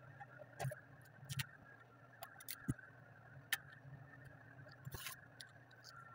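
Faint scattered ticks and light scrapes of vinyl wrap film being handled and pressed by hand onto a door panel, over a steady low hum.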